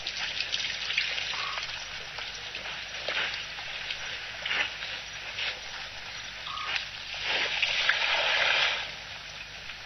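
Elephants drinking at a waterhole: water splashing and gushing in a series of bursts, the longest and loudest near the end.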